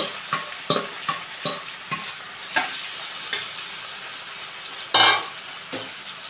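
Marinated chicken pieces sizzling in hot oil and ghee with browned onions in a metal pot. A steel spoon stirs them, scraping and clicking against the pot several times in the first few seconds, with one louder scrape about five seconds in.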